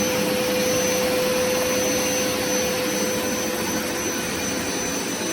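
Hoover Smartwash carpet cleaner's suction motor running at a steady pitch, a constant rushing noise with a steady whine and a thin high tone over it.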